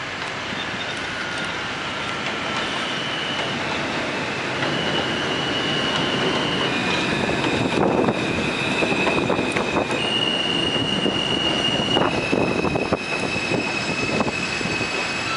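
R160A-1 subway train pulling into an elevated station and braking, its wheels and brakes squealing in several high steady tones that step in pitch. Sharp clicks of wheels over rail joints come in from about halfway, as the train grows louder passing close by.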